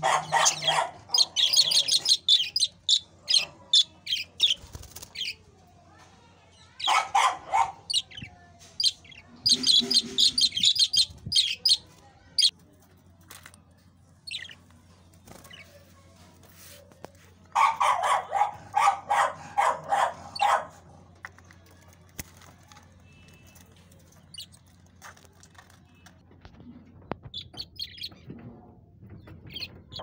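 Caged budgerigars chirping and chattering in about four loud bursts of rapid high notes, with fainter chirps in between, and wings fluttering.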